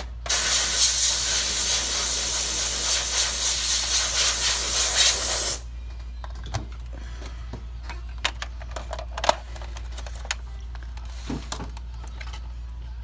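A loud, steady hiss for about five seconds that cuts off abruptly. After it come scattered light clicks and taps from hands handling the console's plastic casing.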